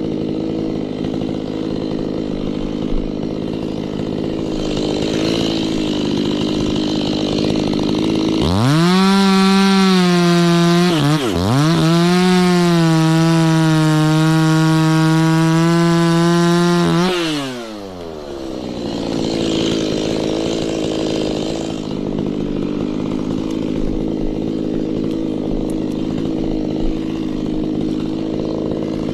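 Two-stroke chainsaw idling, then revved to full throttle about eight seconds in. The engine dips briefly and recovers, holds high revs for about eight more seconds, then drops back to a steady idle.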